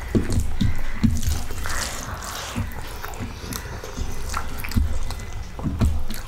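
Fingers squishing and mixing cooked rice with potato kara kuzhambu on a stainless steel plate: irregular wet squelches and clicks, together with close-up chewing of a mouthful of rice.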